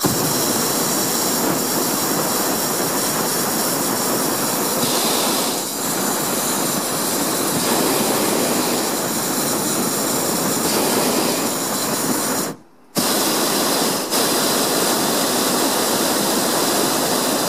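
Hot-air balloon's propane burner firing in a long, loud, steady blast, shut off for about half a second three-quarters of the way through and then fired again.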